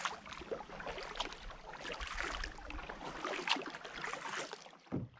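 Kayak paddle strokes splashing in calm river water, about one stroke a second. The sound fades out near the end, with a brief low thump.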